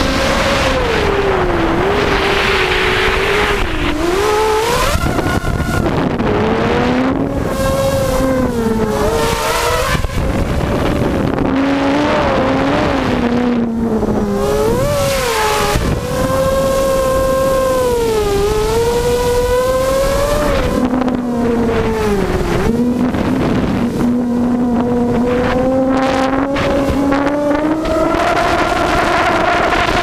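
A mini hexacopter's six Tiger MN1806 2300kv brushless motors spinning GemFan 5x3 two-blade propellers, a loud steady whine whose pitch rises and falls again and again as the throttle changes. It is heard through the onboard GoPro, with wind rushing over its microphone.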